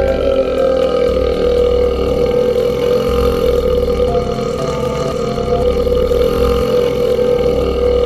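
A man's long, unbroken burp held at a steady pitch, without a break, as part of a burp drawn out or looped to run for ten minutes.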